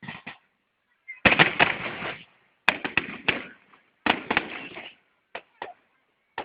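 Fireworks shells bursting overhead, a run of sharp bangs each trailing off in crackle, the loudest coming about a second in and again around three and four seconds in, with short cracks near the end.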